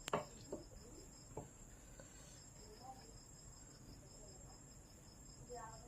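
Crickets chirping in a fast, even trill, faint and continuous, with a short break early on. A few sharp clicks sound in the first second and a half.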